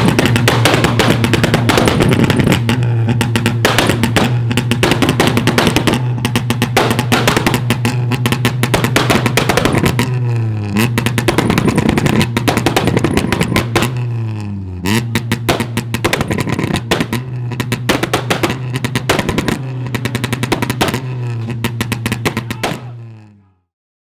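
Electronic music with a fast, dense drum beat and a heavy held bass line, broken by falling sweeps a few times. It fades out near the end.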